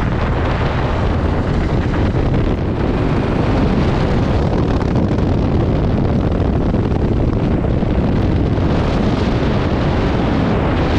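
Wind buffeting the microphone of a moving motorcycle: a loud, steady rumble of rushing air and road noise.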